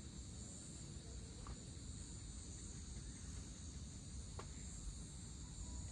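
Evening chorus of crickets and other insects, a steady high shrill, over a steady low rumble.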